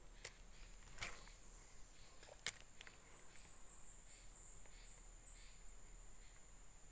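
Insects keep up a steady, high-pitched drone. A few sharp clicks come through it, the loudest about a second and two and a half seconds in.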